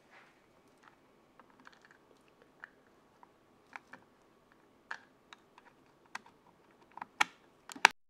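Handling noise on a Canon Legria HF200 camcorder's built-in mic while a microphone plug is fitted into its mic jack: scattered small clicks and knocks, louder and more frequent toward the end, with two sharp clicks near the end. Just before the end the sound cuts out completely as the plug goes in.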